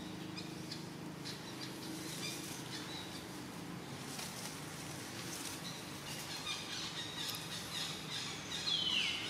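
Forest ambience: faint high chirps and clicks over a steady low hum, then near the end a short, high squealing call that falls in pitch.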